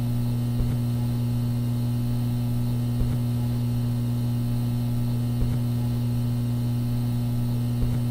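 A steady low hum, with a soft low thump about every two and a half seconds.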